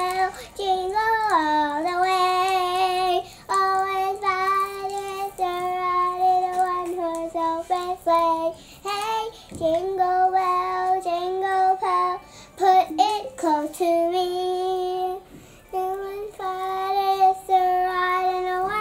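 A young girl singing a song, holding long, steady notes with short breaths between phrases.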